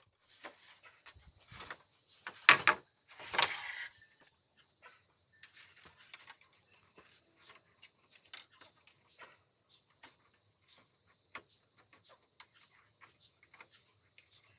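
Scattered light knocks, clicks and rustling, with two louder, short scraping thuds about two and a half and three and a half seconds in.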